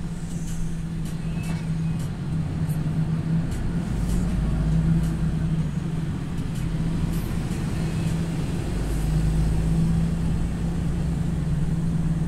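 Heavy truck's diesel engine running steadily, heard from inside the cab as the truck rolls slowly; a deeper rumble comes in about four seconds in and again about nine seconds in as it pulls harder.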